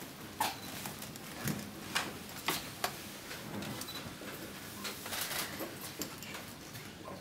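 Irregular small clicks and knocks, about ten of them spread over several seconds, with light shuffling in a quiet, crowded room.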